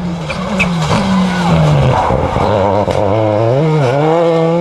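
Rally car engine passing close, its pitch dropping as it brakes and changes down for a corner, then rising again as it accelerates out near the end.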